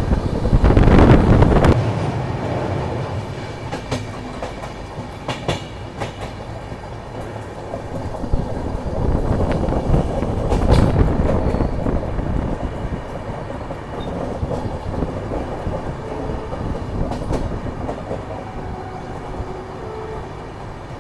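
Double-decker express train running at speed, heard from its open doorway: a steady rumble of wheels on rail with scattered sharp clicks as the wheels cross rail joints. It is loudest about a second in.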